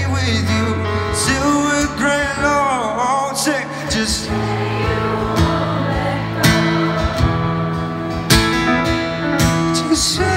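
Two acoustic guitars strumming a slow chord pattern while a man sings a ballad melody over them.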